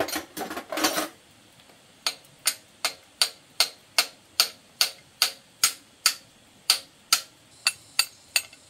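Metal tools clattering together for about the first second, then a steady run of sharp metal-on-metal taps, about two and a half a second, each with a short ring, as a steel rod taps on an engine piston.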